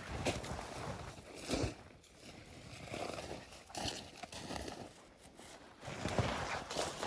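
Irregular crunching and rustling in snow, coming in separate bursts a second or so apart: footsteps and handling of pine branches around a trap set.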